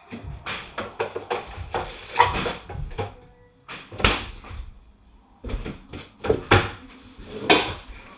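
Popsicle molds clattering as they are set into a refrigerator's top freezer, then the freezer door shutting with a sharp knock about four seconds in, followed by more knocks and clatter of things being handled.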